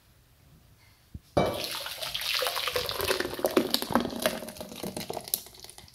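Smooth blended mango drink poured from a blender jar into a glass bowl, the thick stream splashing into the bowl. The pour starts about a second and a half in, just after a faint knock, and tails off near the end.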